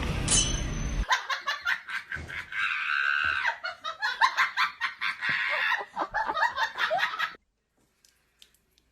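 A person laughing hard in quick, high-pitched bursts, which stop abruptly about seven seconds in. Background music plays for the first second.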